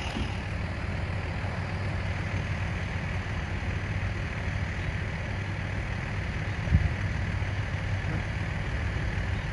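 A vehicle engine idling steadily, a low even hum, with one short low thump about seven seconds in.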